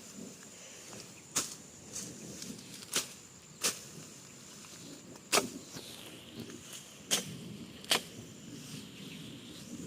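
Grass being cut by hand with a blade: sharp, short slicing strokes, uneven and roughly one a second. A faint steady high insect whine runs underneath.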